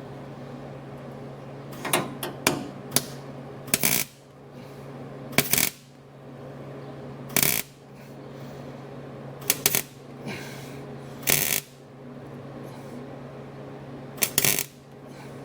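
Hammer strikes on the sheet-steel transmission tunnel patch panel, knocking its edge up into a radius to close a gap: about a dozen sharp metallic hits, some in quick pairs, spaced a second or two apart, over a steady low hum.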